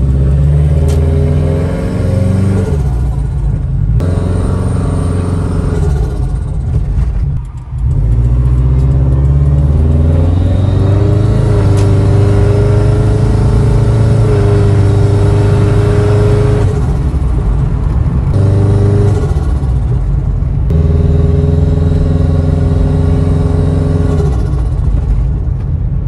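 Turbocharged 2.5-litre flat-four of a 2005 Subaru Forester XT, fitted with a VF39 turbo, pulling through the gears heard from the cabin: the engine note climbs under throttle and breaks off at each gear change, several times over. The GrimmSpeed bypass valve releases boost as the throttle closes for the shifts.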